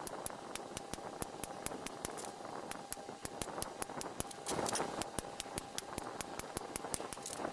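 Light, rapid hammer taps on a hand punch, about five a second, dotting a line into thin mild steel sheet resting on an anvil. Each tap is a short metallic tick as the punch outlines the square to be cut out of the hinge leaf.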